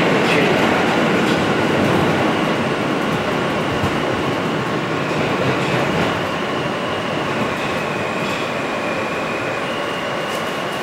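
R160 subway car running on the track, heard from inside the car: a steady rumble and rail noise with a faint high whine, getting gradually quieter.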